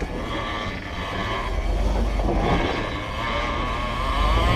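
Jeep Wrangler TJ engine running at low speed as it crawls down a rocky trail, with a wavering whine rising and falling through the second half.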